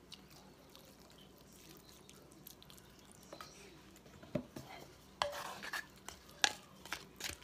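Wooden spatula stirring spaghetti, shrimp and broth in a stoneware baker. Irregular scrapes and knocks against the dish start about four seconds in.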